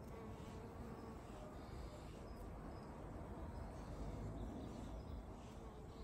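Honeybee buzzing around lemon blossoms, the buzz fading in and out as it moves between flowers.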